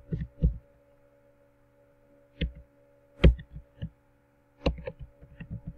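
Keystrokes on a computer keyboard as an email address is typed: a few scattered key taps, then a quicker run of taps near the end, over a faint steady hum.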